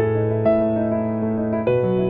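Background music on a piano-like keyboard, held chords that change about half a second in and again near the end.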